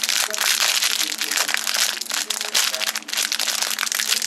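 Thin foil wrapper crinkling and crackling in irregular rapid bursts as a chocolate surprise egg is unwrapped, over a faint steady low tone.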